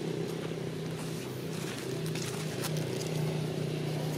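A motor engine running steadily with a low, even drone, with a few faint clicks over it.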